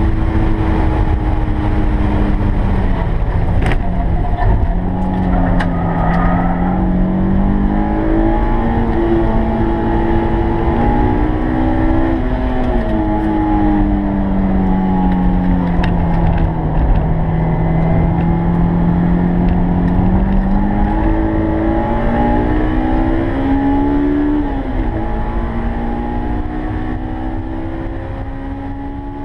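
Honda S2000 AP1's 2.0-litre four-cylinder engine at full track pace, heard from inside the cabin. Its pitch climbs and falls, dropping suddenly at gear changes and sinking low through a slower stretch, over steady road and wind rumble. The sound fades out near the end.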